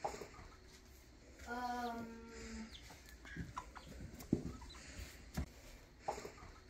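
A flock of chickens clucking softly with short, scattered calls. About a second and a half in, one bird gives a drawn-out, steady call lasting about a second.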